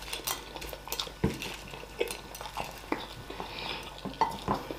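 Hard-boiled eggs being peeled by hand over ceramic plates: irregular small clicks and crackles of shell breaking off, with fragments dropping onto the plates.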